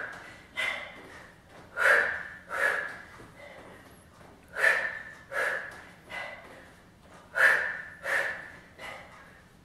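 A woman's forceful exhales during dumbbell boxer crunches: short sharp breaths in pairs, one with each punch, a pair roughly every three seconds as she crunches up.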